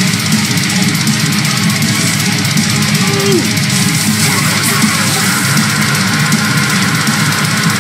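Heavy metal music playing: distorted electric guitars and drums, dense and loud throughout.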